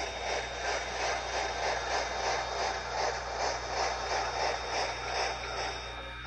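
QSI Titan-U sound decoder in a brass C53 model steam locomotive playing steady exhaust chuffs through its small speakers, about two to three a second, timed to the locomotive's three-cylinder drive as the model runs slowly. A faint steady high whine sits underneath.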